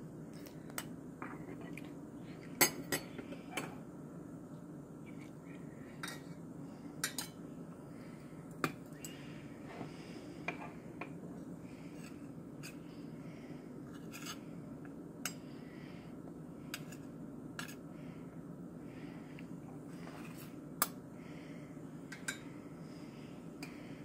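A metal measuring spoon and a butter knife clinking against a glass jar and a steel pot as cocoa powder is scooped, levelled off and tipped into the milk: scattered sharp clinks a second or a few seconds apart, the loudest about two and a half seconds in, over a steady low hum.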